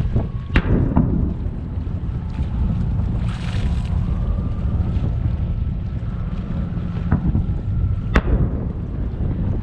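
Firework shells bursting in the distance: a few sharp bangs, two close together near the start and two more towards the end, the last the loudest. A steady low rumble runs underneath.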